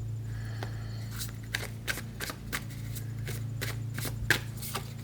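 Tarot cards being handled: a run of about a dozen short, sharp card snaps, a few a second, over a steady low hum.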